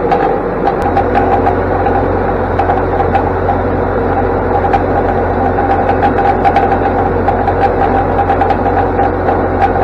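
Massey Ferguson 4707 diesel tractor running steadily under way with a Kubota round baler working behind it, with small ticks of clatter; a deeper hum comes in about a second in.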